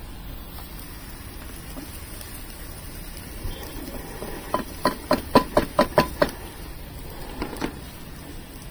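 A metal utensil clinking against a cooking pot: a quick run of about eight ringing clinks, about four a second, halfway through, and two more near the end, over a steady low hiss.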